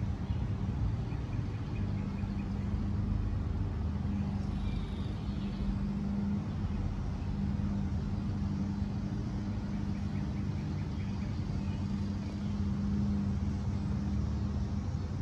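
A steady low mechanical hum with a deeper rumble beneath it, unbroken throughout.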